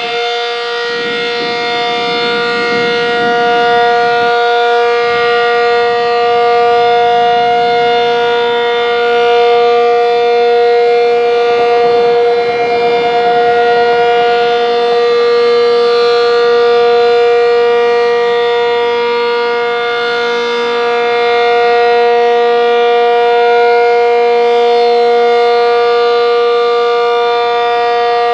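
ASC Cyclone C-125 dual-tone rotating outdoor warning siren sounding its steady Alert signal at full speed: a held chord of two tones with many overtones, swelling and easing gently every several seconds.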